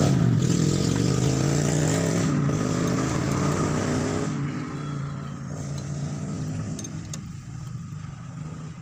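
Six-cylinder Mitsubishi Fuso 6D diesel engine running, loud and steady, then quieter from about four seconds in. It runs while the injector fuel-line nuts are worked one cylinder at a time to find the faulty nozzle behind its white exhaust smoke.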